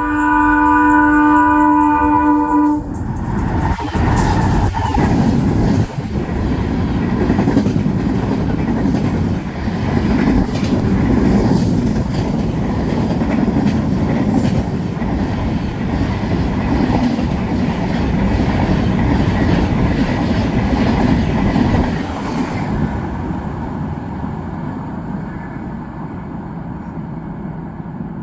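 Air horn of twin WDG4 diesel locomotives sounding one steady blast that cuts off about three seconds in. The train then passes at over 100 km/h, a loud rush of engines and wheels clattering over the rails, which drops away about twenty-two seconds in to a fainter rumble as it recedes.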